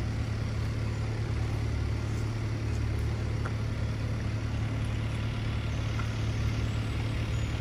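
Car engine idling with a steady low hum.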